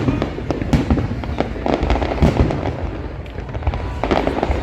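Fireworks bursting in quick succession, a dense mix of booms and crackles.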